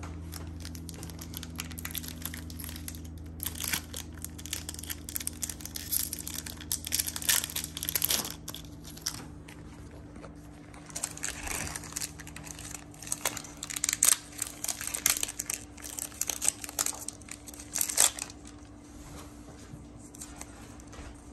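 Foil Pokémon booster pack wrappers crinkling and tearing as they are opened by hand, in two stretches of sharp rustling with a short lull between.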